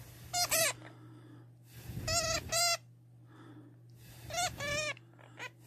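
Hamster squeaking: three pairs of short, wavering squeaks, about two seconds apart.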